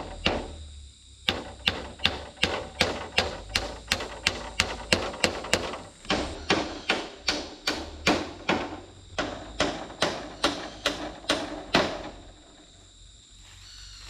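A hand tool striking hard in a steady rhythm, about two and a half blows a second for roughly ten seconds, then stopping.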